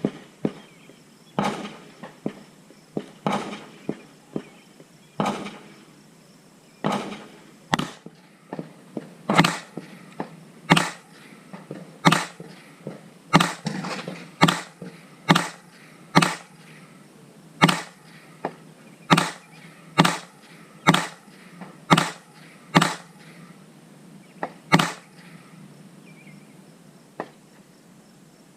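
A .22 rimfire gun firing a slow string of single shots, roughly one a second and about twenty in all, some louder than others, with fainter shots in between. The firing stops near the end.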